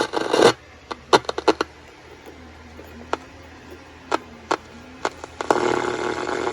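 Soundwave SW-2900 multiband transistor radio switched to the marine band: scattered sharp clicks and crackles of static, then a louder stretch of hiss with faint tones near the end.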